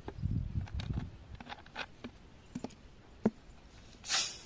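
Plastic soft-drink bottles and a funnel being handled: light knocks and scrapes of plastic, with the last of the cola gurgling into the can at the start and a short hiss near the end.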